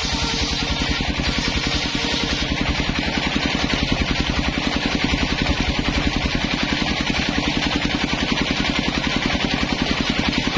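Engine of a homemade circular table saw running steadily with an even, rapid chugging pulse, spinning the large blade as coconut-wood boards are fed through it.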